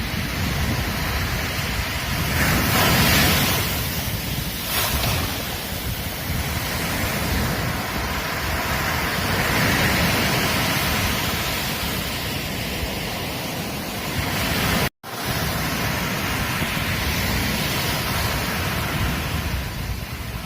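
Ocean surf on a beach, a steady wash that swells as waves break and eases between them, with wind rumbling on the microphone. The sound drops out for an instant about fifteen seconds in.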